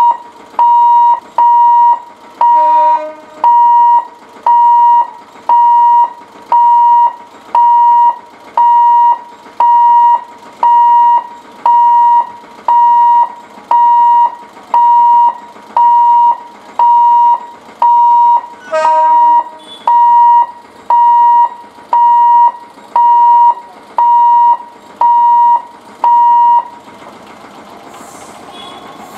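Level-crossing warning alarm beeping, a loud, steady high tone about once a second, stopping a few seconds before the end. An EMU train's horn gives two short toots, a few seconds in and about two-thirds of the way through, and the noise of the approaching train rises at the end.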